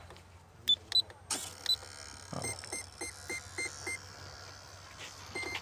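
Radio-control transmitter beeping: two clicks, each with a short high beep, in the first second, then a quick run of six short beeps in the middle, over a faint electronic whir.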